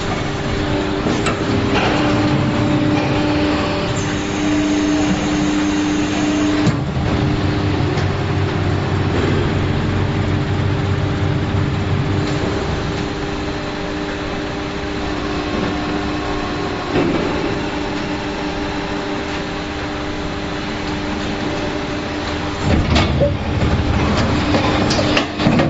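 Injection molding machine running through a cycle on a toy-car mold test: a steady machine hum that changes pitch a couple of times as the stages shift, with several sharp clunks near the end.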